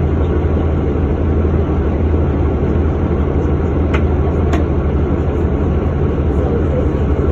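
2009 Orion VII Next Generation hybrid bus with a Cummins ISB 6.7 diesel and BAE HybriDrive running with a steady, loud low drone. Two short clicks half a second apart come about four seconds in.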